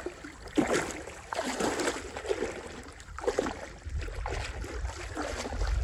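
Legs wading through shallow water over a muddy bottom, with a swish and splash at each stride. Low wind rumble on the microphone grows in the second half.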